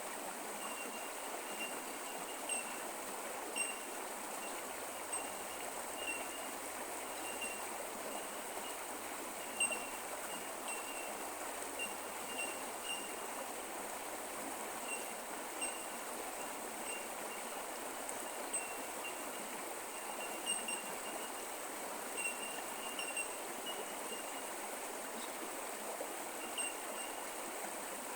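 Creek water running steadily over the bed, an even rushing trickle. Short high chirps repeat at irregular intervals throughout.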